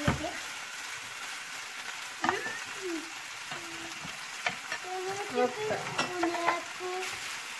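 Pieces of bell pepper and pineapple sizzling as they fry in a frying pan, with a steady hiss, stirred with a wooden spatula that knocks against the pan a few times.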